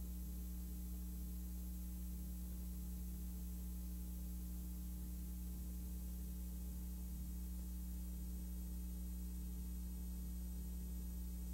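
Steady low electrical hum with a faint hiss, unchanging throughout, from a silent film's audio track.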